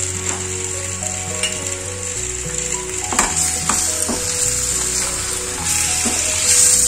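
Tomato wedges sizzling in hot oil in a steel kadai, with a wooden spatula stirring and scraping against the pan a few times from about three seconds in. The sizzle grows louder near the end.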